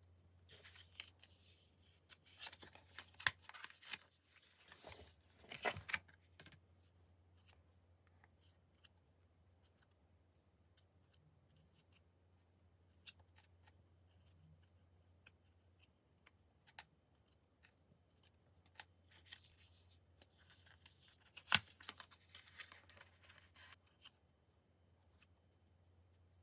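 Merchandise packaging being opened and handled: two stretches of faint cutting, tearing and crinkling, one in the first few seconds and another around twenty seconds in, with scattered light clicks and taps between them.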